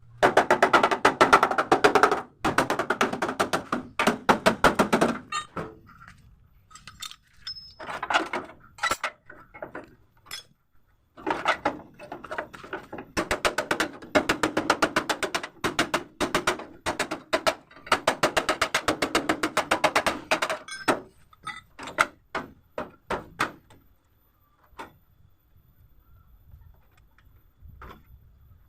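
Hammer beating the sheet-metal body of a Mitsubishi L300 in rapid runs of blows lasting a few seconds each, the panel ringing a little, with scattered single blows later on: panel beating to straighten the crash-bent lower door pillar.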